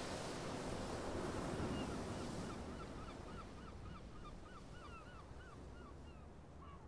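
Sea wash and wind fading out, with gulls calling in a quick series of short yelping notes, about three a second, starting about two seconds in.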